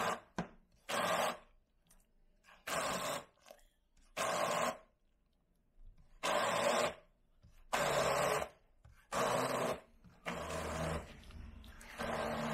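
Kenwood Triblade hand blender with a metal blade wand pulsed on and off in about nine short bursts, pureeing boiled red kidney beans into paste. Near the end the gaps between bursts fill with a lower running sound.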